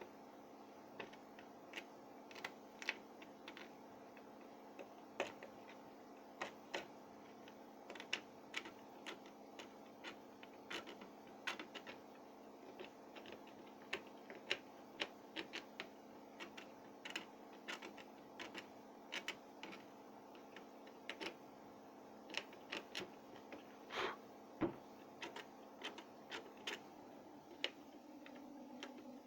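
Irregular light clicks and taps of small hard objects, several a second at times, over a steady low hum.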